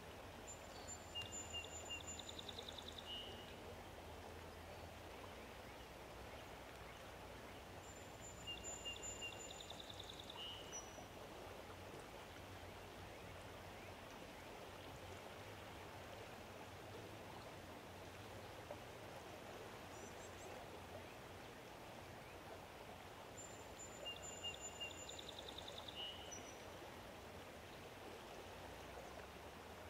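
Steady rush of flowing water, with a songbird singing the same short phrase three times: a high thin whistle, then a buzzy trill and a few lower notes.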